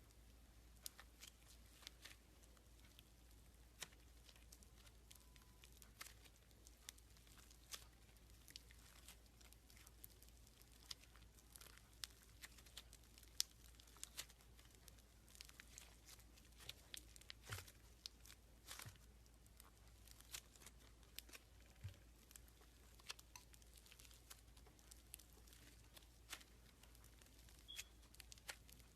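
Slime being pressed and worked by hand, giving faint, irregular small crackles and pops with an occasional louder click.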